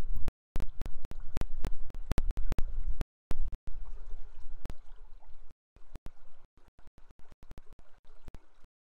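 River water rushing and flowing. The sound is choppy, cutting out completely many times for fractions of a second.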